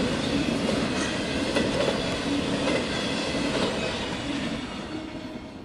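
Freight train of autorack cars rolling past over the rails, a steady rumble that fades as the end of the train goes by.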